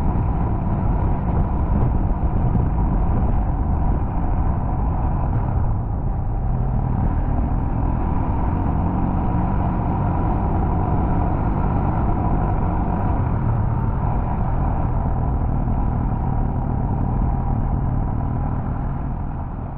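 Onboard riding noise from a bike-mounted camera on a moving motorcycle: steady wind rush over the microphone with the engine running at cruising speed.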